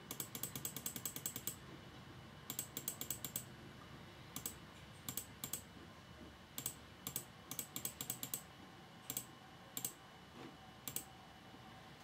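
Computer mouse button clicked in quick runs of about eight clicks a second, with single clicks and pairs in between.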